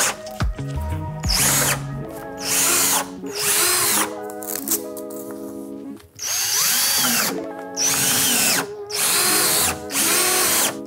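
Cordless drill/driver driving #10 × 1-inch pancake-head screws through metal Z-closures into standing seam roof panels, compressing the butyl tape beneath: about seven short bursts of whirring, each rising and falling in pitch. Background music plays underneath.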